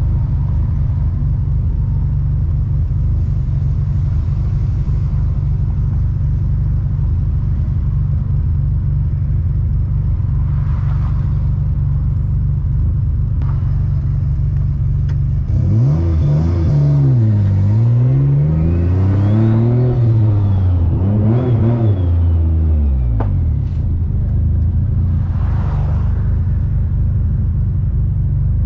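Turbocharged VQ35DE V6 of an Infiniti G35 coupe, heard from inside the cabin, running at a steady low drone. About halfway through, the engine pitch climbs and drops three times as the car accelerates, with a faint high whistle rising alongside it, then settles back to a steady drone.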